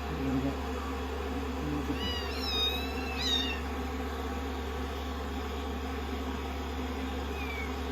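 Kittens meowing in high calls that bend in pitch: two about two to three and a half seconds in and a short one near the end, over the steady whir of a hair dryer.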